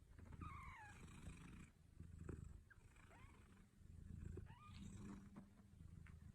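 Faint cat purring, a low buzz that swells and fades in slow waves, with a few short high chirps over it.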